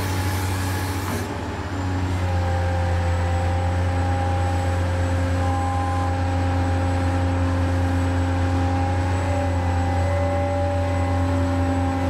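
A steady low engine-like drone with several held tones above it, unchanging in strength; a high hiss cuts out about a second in.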